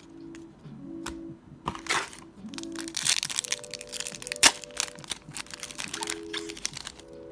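Plastic wrapper of a hockey card pack crinkling and tearing as the pack is ripped open, in a dense crackle with one sharp crack about four and a half seconds in. Soft background music with held notes runs underneath.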